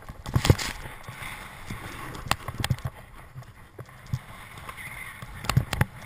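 Snowboard sliding and carving down through deep powder snow, a steady rough rushing noise, with sharp knocks about half a second in, twice a little after two seconds, and twice near the end.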